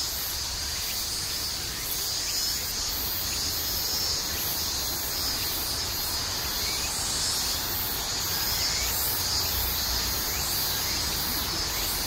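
A steady chorus of insects, a continuous high trill with faint regular pulsing above it, over a low steady rumble.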